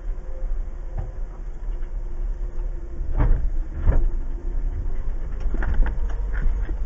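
2015 Jeep Wrangler Unlimited Rubicon's 3.6-litre V6 running at low revs as it crawls over a rutted trail, heard from inside the cabin as a steady low rumble. Knocks and clunks of the body and suspension jolting over the ruts break through it, the loudest about three and four seconds in and a quick cluster near the end.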